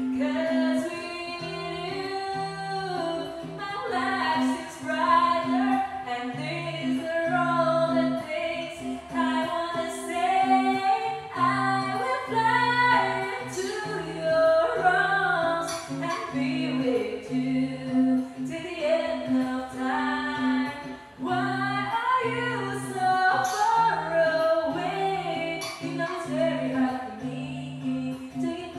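A woman singing a song over a karaoke backing track, her melody rising and falling above a steady low held note and a repeating bass line.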